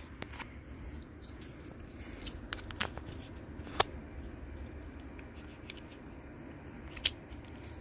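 Scattered light clicks and handling noises over a steady low hum from a running desktop computer, with the sharpest clicks about four seconds in and about seven seconds in.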